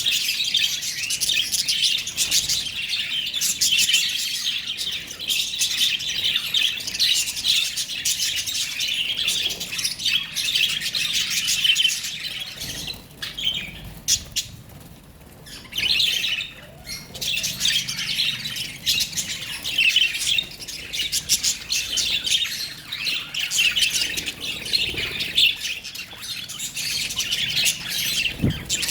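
Lovebirds chattering in a dense run of rapid, high chirps and squawks, easing off for about two seconds near the middle.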